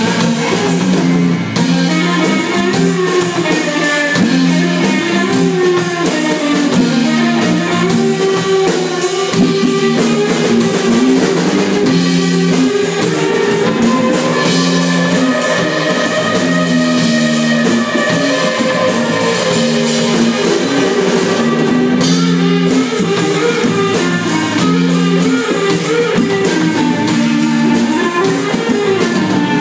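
Live rock band playing an instrumental passage on electric guitars over a drum kit.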